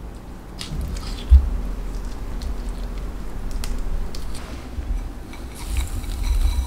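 Wet squishing and small clicks as grapefruit flesh is pulled apart by hand and dropped into a glass bowl, with a dull thump about a second in. Near the end comes a soft hiss of granulated sugar poured over the fruit.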